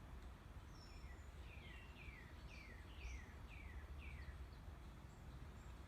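Faint birdsong over a low steady hum: a few thin high whistles, then a run of about seven quick downward-slurred chirps in the middle.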